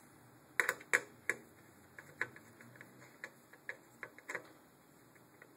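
Sharp, irregular clicks and taps of plastic and metal computer-case parts being handled and fitted, a few louder ones close together about a second in, then lighter ones at uneven intervals.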